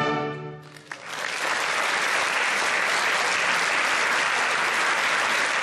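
A wind band's closing chord dies away, and about a second in the audience breaks into steady applause.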